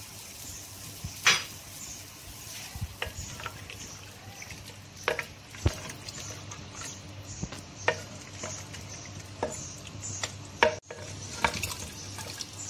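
A wooden spoon stirring and frying down mutton, tomatoes and freshly added yogurt in hot oil in a clay pot. Oil sizzles steadily under irregular knocks of the spoon against the pot, the loudest about a second in and again near the end.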